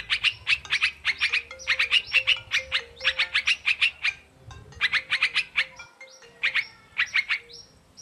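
Yellow-vented bulbul chirping in fast runs of short high notes, one phrase about every second, with a brief lull past the middle.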